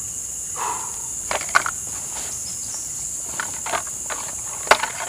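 Steady high-pitched chorus of crickets or similar insects. Over it comes a scatter of sharp knocks and clatters, the loudest about a second and a half in and again near the end.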